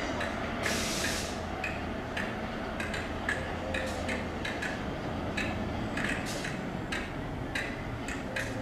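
Freight wagon wheels clicking over rail joints and pointwork, about two to three clicks a second, as a diesel-hauled engineering train rolls slowly away, with the locomotive's diesel engine giving a steady low hum underneath.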